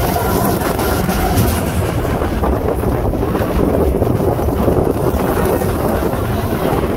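Expedition Everest roller coaster train running at speed along its track, a steady low rumble, with heavy wind noise on the microphone.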